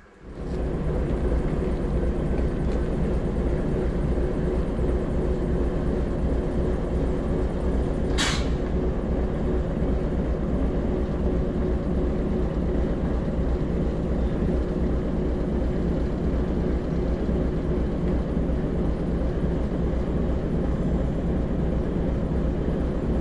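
Class 04 diesel shunter's engine running steadily as it hauls the Class 11 along the depot roads, with a short hiss of air about eight seconds in.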